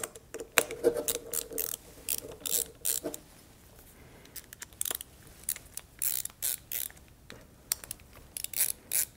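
Ratcheting hex driver clicking in quick bursts as it backs off the screws of a gas-key staking tool clamped on an AR-15 bolt carrier, with a short pause about halfway through.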